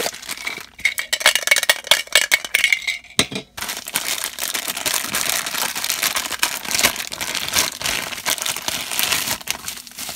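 Plastic packaging handled: a black plastic bag holding a Funko Soda figure scrapes and clicks as it is drawn out of the can, then crinkles densely from about four seconds in as it is opened around the bubble-wrapped figure.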